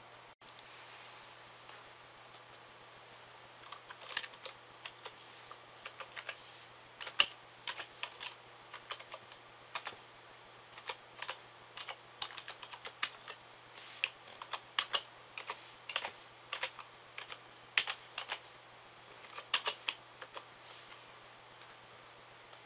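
Computer keyboard being typed on: quick, irregular keystroke clicks begin about four seconds in and run until near the end.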